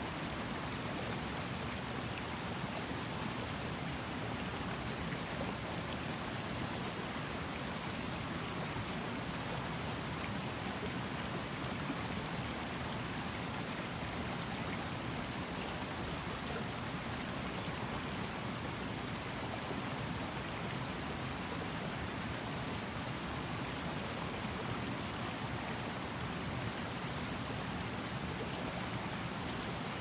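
Highland river flowing, a steady, unbroken rush of running water.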